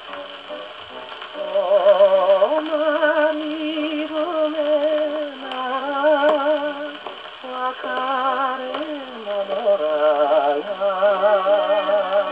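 A 1948 Columbia 78 rpm record playing on a portable wind-up gramophone: a voice sings with a wide vibrato in phrases over the band accompaniment. The sound is thin, with no deep bass and no high treble.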